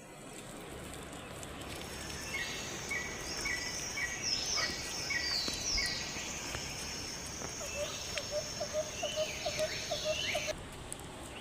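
Birds calling over a steady outdoor hiss: a run of short repeated chirps, falling whistled notes, and later a quick series of lower notes, about three a second. The calls cut off suddenly near the end.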